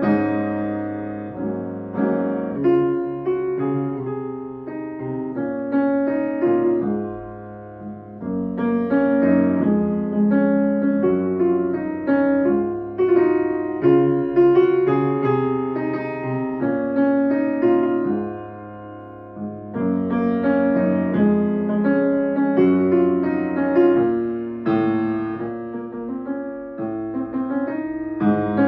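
Grand piano played solo: a slow pop ballad, melody over sustained chords, played in phrases that swell and ease off, with two softer lulls between phrases, about a quarter and two thirds of the way through.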